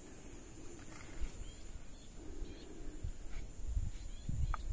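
Outdoor ambience: faint, scattered bird chirps over a low, irregular rumble that grows louder near the end.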